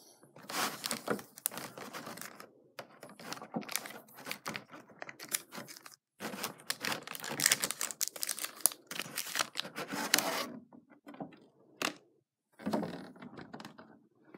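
Foil trading-card booster-pack wrappers crinkling and rustling as the packs are handled and shuffled, with light clicks and taps. It comes in several bursts with short pauses between them.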